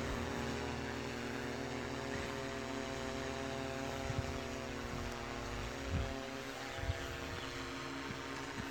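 DJI camera drone's propellers heard overhead as it flies a slow mapping grid: a steady multi-pitched drone hum that holds the same pitch throughout.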